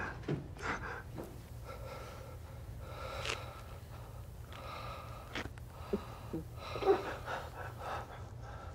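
A man lying down, breathing heavily in irregular, strained breaths, over a low steady hum.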